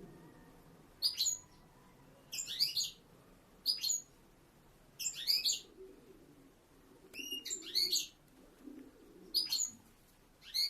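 European goldfinch calling in short bursts of high twittering chirps, about one burst every second or so.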